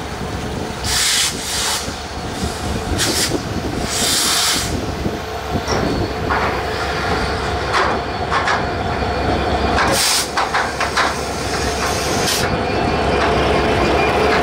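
Passenger train running on the rails: a steady rumble of wheels on track with several short, sharp hisses, growing louder near the end.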